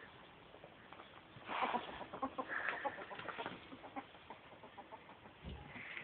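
Ferret dooking: a run of quick, soft clucking chuckles, the sound a ferret makes when excited and playing.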